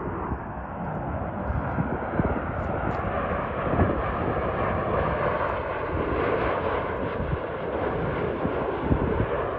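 Jet airliner flying past, its engines a steady rushing roar.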